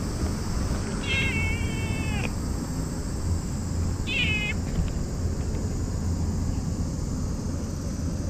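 A cat meowing twice as it is stroked: a long meow about a second in that drops in pitch at its end, and a short meow a few seconds later, over a steady low rumble.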